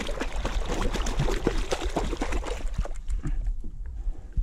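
A hand splashing and swishing in lake water at the side of a paddleboard, rinsing off after handling a fish. The splashing dies away about three seconds in.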